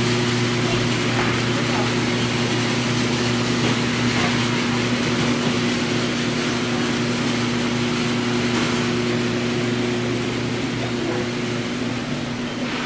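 Steady machine hum at one low pitch with an even rushing noise over it, easing a little near the end, with indistinct voices in the background.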